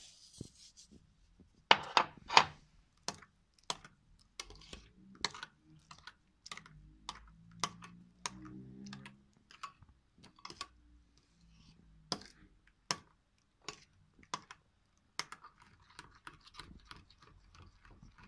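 Metal spoon clinking and tapping against a small glass bowl while stirring yeast into lukewarm water to dissolve it. There are sharp clicks about twice a second, loudest about two seconds in.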